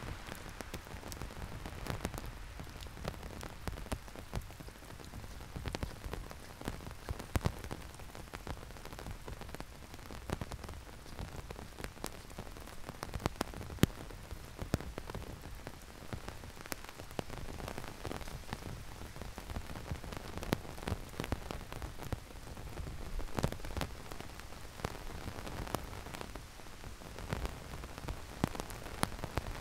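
Heavy rain falling steadily, with many sharp, irregular taps of drops striking close by.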